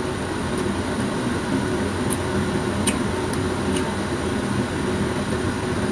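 Steady hum and whir of a running fan unit, with a few faint wet mouth clicks from chewing grapes about two to four seconds in.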